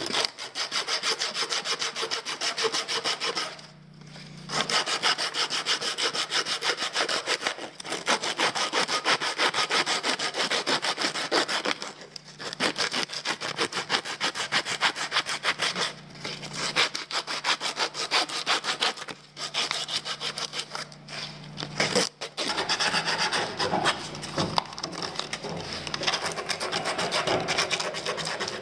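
Sandpaper rubbed by hand quickly back and forth over a Baltic birch plywood slingshot clamped in a vise, in spells broken by short pauses.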